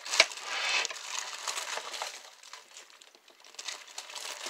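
Plastic slow-cooker liner crinkling as the chicken taco mixture inside is stirred, with a sharp knock just after the start. The crinkling thins out after about two seconds.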